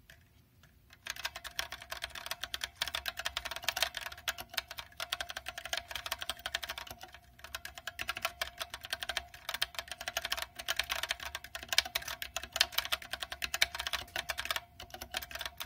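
Fast continuous typing on a mechanical keyboard with Zealio R8 65 g tactile switches, plate mounted, starting about a second in with a couple of short pauses. A steady metallic ping rings under the keystrokes, a ping noise that the owner finds significant with this setup.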